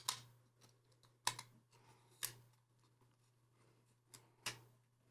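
Faint, scattered clicks and taps of hands handling an Olympus mju-II compact film camera and its film while the film leader is laid in place, about half a dozen sharp clicks at irregular intervals.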